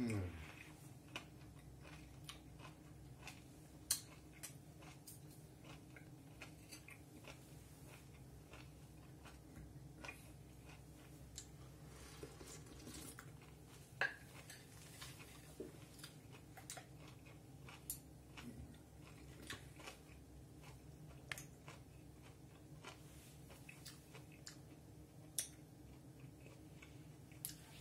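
Faint chewing of giant white clam, with scattered sharp clicks of chopsticks against the clam shells and the plate, over a steady low hum.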